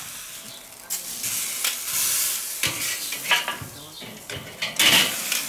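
Veal tomahawk steak sizzling on a hot grill grate over glowing charcoal as it is laid down with metal tongs. The hiss swells twice, about two seconds in and again near the end, with a few clicks of the tongs against the grate.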